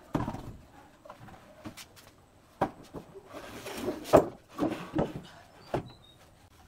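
Wooden pallets being set down and shifted on a concrete floor: a thud just after the start, then a series of hollow wooden knocks, with a scraping slide leading into the loudest knock about four seconds in.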